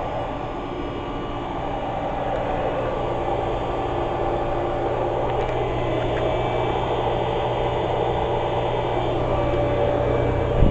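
Carrier 38BRC central air-conditioner condensing unit running: the condenser fan blows air over a steady hum from its Copeland scroll compressor, growing gradually louder.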